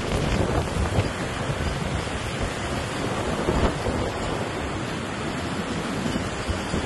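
Strong tropical-storm wind blowing across a phone's microphone in uneven gusts, mixed with the rush of heavy surf.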